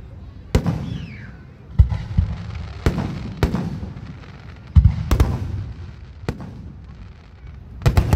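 Aerial fireworks shells bursting overhead: a string of sharp booms, about nine, irregularly spaced and some in quick pairs, each trailing off in a low rumble.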